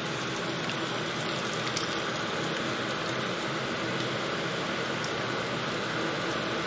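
Chicken and spiced curry sauce sizzling steadily in a hot frying pan as base gravy is poured in.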